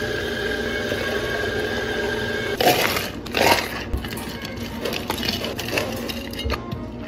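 Water running from a dispenser into a plastic cup with a steady hum. About two and a half seconds in, this gives way to ice cubes scooped and dropped into two plastic cups, clattering and rattling.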